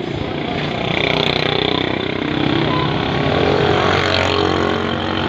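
A vehicle engine running close by amid street traffic, a loud, steady drone.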